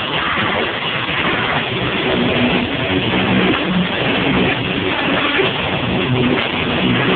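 Rock band playing loudly live: amplified electric guitar over drums, a continuous dense wall of sound with held low guitar notes.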